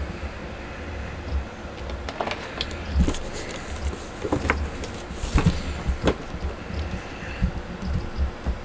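Close handling noise from a handheld camera and a cardboard figure box being turned over in the hand: a low rumble throughout, with a series of knocks and rubs from a few seconds in.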